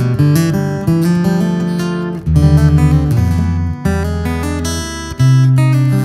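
Martin 000-13E steel-string acoustic guitar played fingerstyle: held bass notes under a plucked melody, with strong new bass attacks about two seconds in and again near the end.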